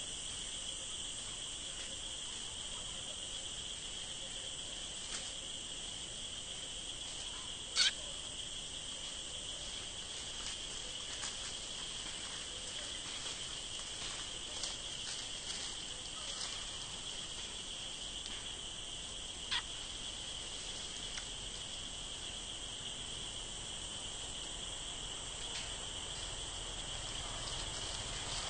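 Steady high-pitched drone of insects in the forest. Two brief sharp sounds cut through it, the louder one about eight seconds in and a smaller one near twenty seconds.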